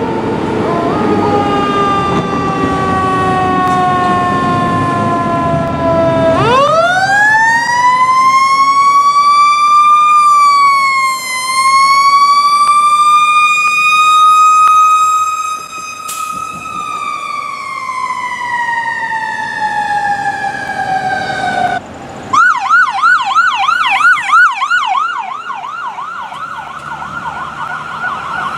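Emergency-vehicle sirens: a siren falling in pitch over a truck engine, then a mechanical siren spinning up to a high wail, dipping once and rising again before coasting slowly down. Near the end it gives way to a fast electronic yelp siren.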